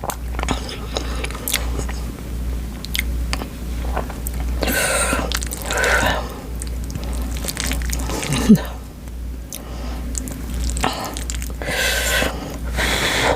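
Close-miked chewing of spicy buldak noodles and sticky rice: wet mouth clicks and smacks throughout, with two breathy puffs of air, one about a third of the way in and one near the end. A short low vocal sound, the loudest moment, comes about two-thirds of the way through.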